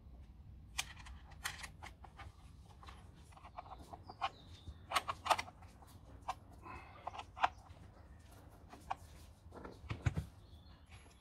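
Scattered clicks and knocks of an open-end wrench on the bar side-cover nut of a Parkside 1400 W electric chainsaw, with the saw's plastic housing being handled.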